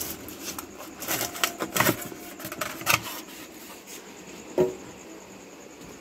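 Rustling, scraping and light knocking of a thermocol (polystyrene foam) packing insert being pulled out of a washing machine's plastic spin tub: a quick string of clicks and rustles for about three seconds, then one louder short sound past the middle.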